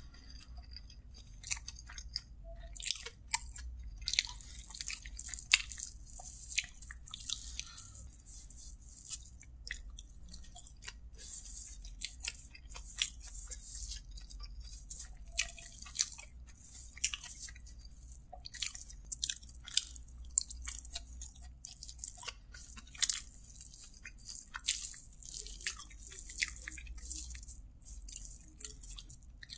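A person chewing mouthfuls of kottu roti eaten by hand. It comes through as a dense run of many short mouth clicks, with no speech.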